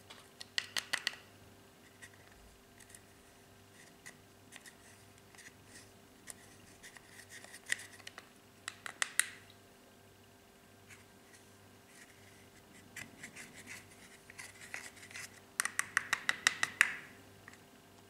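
A thin pointed tool scraping and chipping pressed eyeshadow out of the pans of a plastic palette, in quick runs of scratchy clicks. Three louder flurries stand out: about a second in, around the middle, and a longer one near the end, with scattered single scrapes between.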